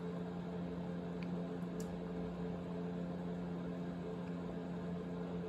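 Steady low mechanical hum of a running motor or appliance in a small room, with a couple of faint ticks.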